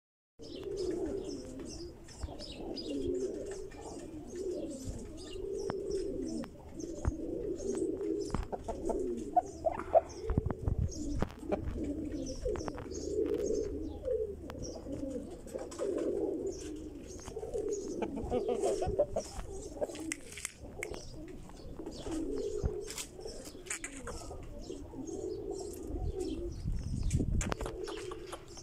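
Caged pigeons cooing without pause, many calls overlapping, with high chirps of small birds over them. A low rumble of handling or wind on the microphone comes near the end.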